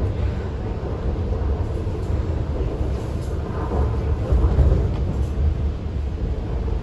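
Interior running noise of an MTR C-train, a steady low rumble from wheels on rail and the car body, as the train slows into a station platform.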